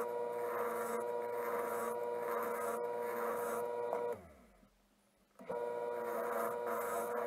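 Wood lathe running with a steady motor whine while a turning tool scrapes across the face of the spinning wooden blank, the scraping hiss swelling and fading with each pass. The sound cuts out for about a second and a half partway through, then resumes.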